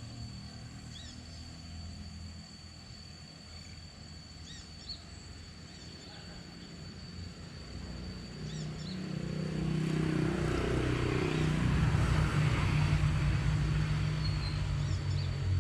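A motor vehicle's engine approaching and growing louder over the second half. Earlier there are a few short bird chirps and a steady high-pitched tone.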